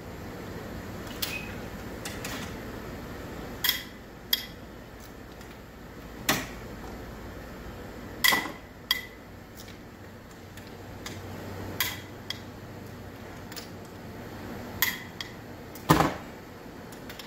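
Hand tools working the cylinder head bolts of a Honda Civic engine: a ratchet with a long bar and socket clicking and clinking against the metal, about ten sharp metallic clinks a second or two apart, the loudest near the end. The bolts are being broken loose to take the cylinder head off for a head gasket replacement.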